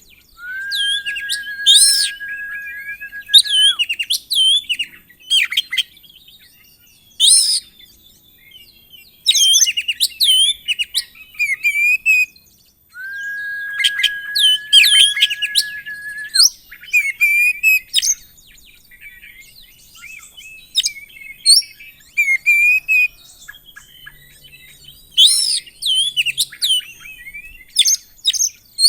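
Oriental magpie-robin singing a long, varied song of quick chirps, whistles and trills, twice holding a steady whistled note for about three seconds, at the start and again about halfway through.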